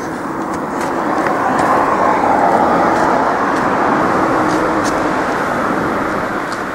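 A road vehicle passing by: a rushing noise that swells over the first two seconds or so and then slowly fades away.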